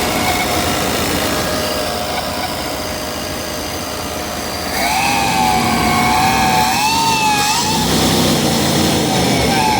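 Chevy 5.7 V8 engine running with a high whistle around the throttle body, of unknown cause. The whistle is faint at first, turns loud about halfway through with a slightly wavering pitch, drops away briefly about two seconds later, and comes back near the end.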